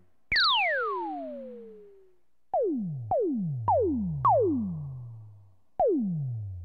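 Synthesized sci-fi laser gun shots, each a sharp zap whose pitch sweeps steeply downward as it fades. One long shot comes first, then four quicker shots about half a second apart, then one more near the end.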